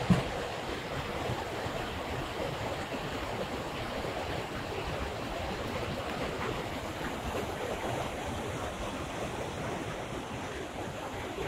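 Steady rushing of a small rock waterfall, with one brief thump right at the start.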